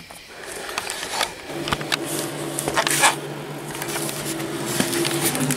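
Rustling and clicks of a handheld camera being moved and handled. A steady low hum comes in about a second and a half in and runs underneath.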